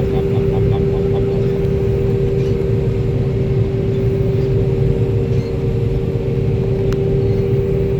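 Large vehicle engine running steadily, a constant hum over a low rumble.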